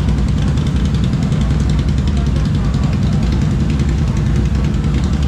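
ATV engines idling, a steady low rumble.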